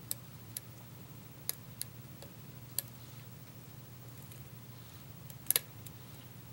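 Lock picking: a pick and tension wrench working the pin stacks of a pin-tumbler challenge lock held in a vise, giving a handful of sharp, irregular metallic clicks as pins set and drop. The loudest is a double click about five and a half seconds in, over a low steady hum.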